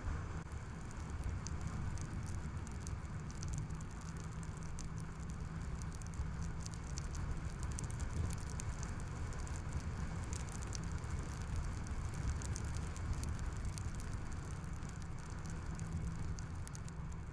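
Steady low rumble of a car driving on the road, with light, irregular ticking scattered over it.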